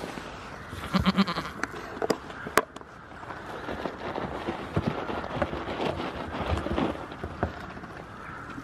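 A goat bleats briefly about a second in, and hooves knock sharply on hollow plastic tubs a couple of times.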